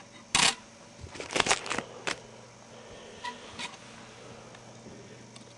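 Small handling clicks and scrapes of tweezers on a mobile phone's plastic parts: one about half a second in, a quick cluster a second or so later, then a few faint ticks.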